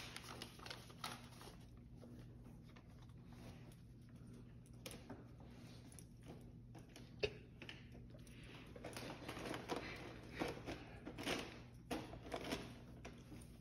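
Faint, scattered rustling and crinkling of gift-wrapping paper and light taps as dogs nose and paw at wrapped presents. It grows busier in the last few seconds.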